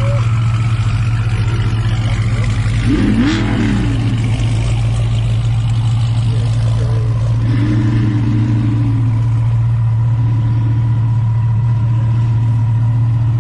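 Car engine idling with a steady, even low drone.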